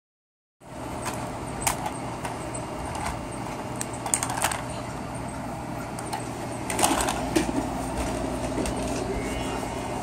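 Hard plastic toys clacking and knocking a few times as they are grabbed and handled, over a steady background hum.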